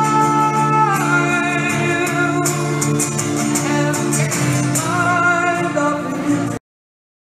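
Street busker singing with an acoustic guitar, the voice holding long, drawn-out notes over the strummed accompaniment; the sound cuts off suddenly near the end.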